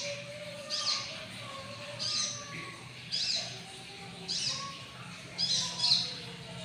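A caged konin (kolibri ninja sunbird) calling in short, sharp, high chirps about once a second, each a quick falling sweep, with quieter lower whistled notes between them.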